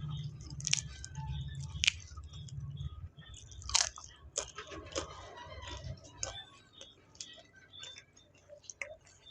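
Close-up eating sounds: chewing and biting stir-fried clams and water spinach, with many short, sharp clicks and smacks. A low hum sits underneath for the first three seconds.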